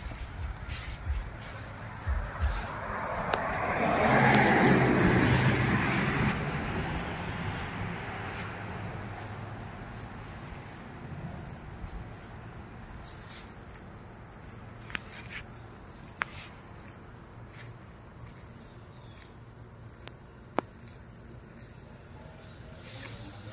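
A car passes on the road, rising to its loudest about four to five seconds in and fading away over the next several seconds. Insects chirp steadily underneath, with a few single sharp clicks later on.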